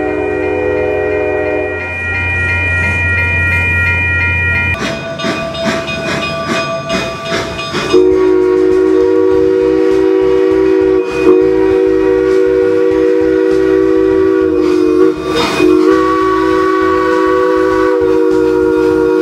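A passenger train's horn chord sounds for about two seconds, then a low engine drone runs under the passing coaches, and the wheels clatter over rail joints. From about eight seconds in, steam locomotive No. 473, a 2-8-2 narrow-gauge engine, blows a long, loud chime whistle, broken off twice briefly.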